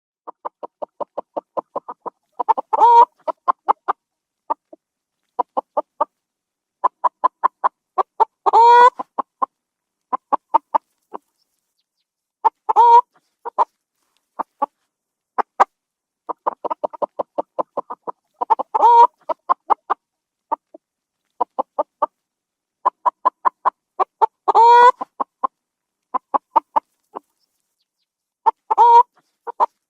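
Chicken clucking in repeated phrases: a run of short clucks quickens into a louder, drawn-out squawk, again about every four to six seconds.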